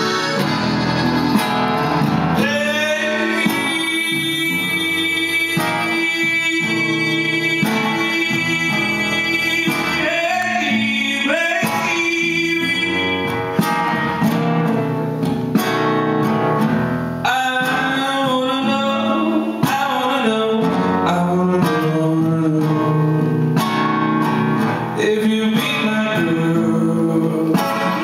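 Live music: a male singer sings over a strummed acoustic guitar, with an accordion playing sustained chords along with them.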